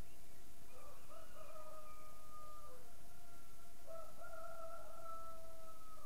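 Two faint, long drawn-out animal calls, each lasting about two seconds and ending on a held, level note. The second begins about four seconds in.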